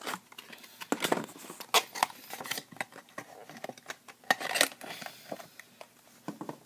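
Plastic protective packaging being handled and pulled off a diecast model plane: irregular crinkling rustles and sharp little clicks.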